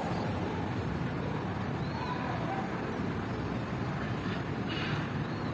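Steady low outdoor background rumble, with a short hiss about five seconds in.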